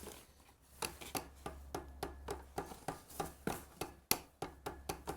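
Rapid run of short, sharp clicks, about four a second, starting about a second in: hand-tool work on the unicycle's fittings during assembly.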